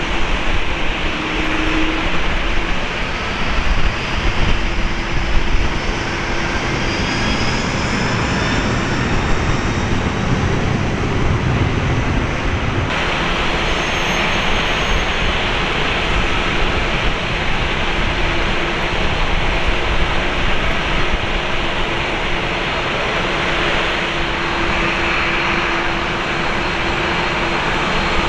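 Airbus A350-1000's Rolls-Royce Trent XWB-97 turbofans running at taxi power: a steady jet whine and rumble. A faint higher whine rises from about six to twelve seconds in, and the sound changes abruptly about thirteen seconds in.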